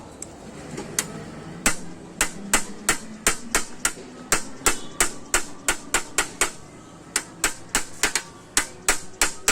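Glass being knocked with a hard tool in quick, sharp taps, about three a second, with a short break a little past two-thirds of the way through. This is the tapping used to break a scored circle out of a glass sheet.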